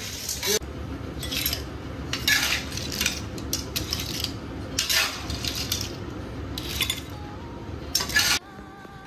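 Tableware clinking during a meal: chopsticks, spoons and bowls knocking together in a string of sharp clinks over a low steady background, which stops abruptly near the end.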